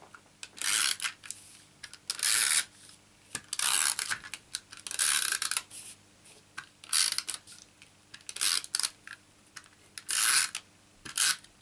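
Stampin' Up! Snail tape-runner adhesive dispenser drawn across the back of a card panel: a series of about eight short rasping strokes, roughly one every second and a half, with light paper handling between.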